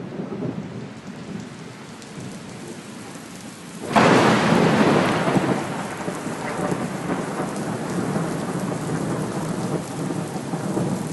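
Thunderstorm: steady rain with a sudden loud thunderclap about four seconds in, then a long rumble fading under the rain.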